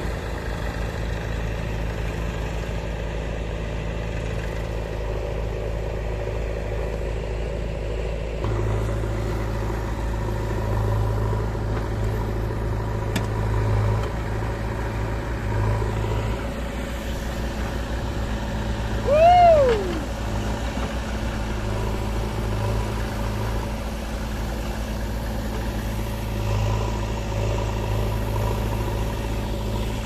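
Massey Ferguson tractor's diesel engine running steadily under load, pulling a trolley full of soil; the engine note gets a little stronger about a third of the way in. About two-thirds through, a short high call rises and falls in pitch once, louder than the engine.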